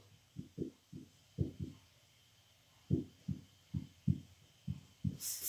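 A dry-erase marker knocking against a whiteboard while writing: about a dozen soft, low taps at an irregular pace.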